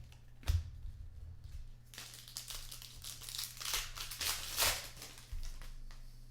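Plastic packaging crinkling and rustling as trading cards are handled, with a sharp click about half a second in.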